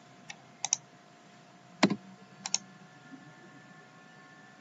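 Computer mouse clicks: a handful of short, sharp clicks, several in quick pairs, with one heavier knock a little under two seconds in. Faint steady tones run underneath.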